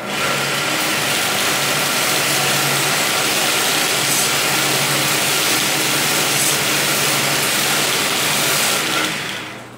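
Homemade belt sander driven by a sewing-machine motor, running steadily: a motor hum under a loud hiss from the moving abrasive belt. It starts abruptly and dies away near the end.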